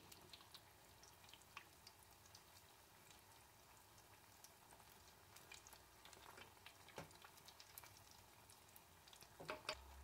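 Rice fritters deep-frying in hot oil in a small pot: a very faint sizzle with scattered small pops and crackles, one slightly louder pop about seven seconds in.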